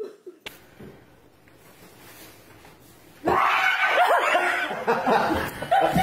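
A few fairly quiet seconds, then from about three seconds in, people laughing loudly.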